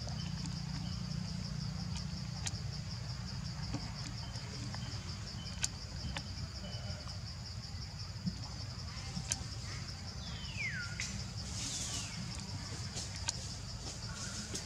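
Steady chorus of insects, a fast pulsing high-pitched trill, over a low background rumble. Near the end come a few falling whistled calls, the clearest about ten seconds in.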